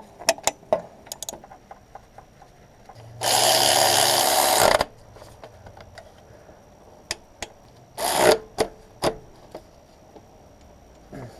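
A power tool runs in a loud burst of about a second and a half, then again briefly later, among scattered clicks and knocks of tools on metal.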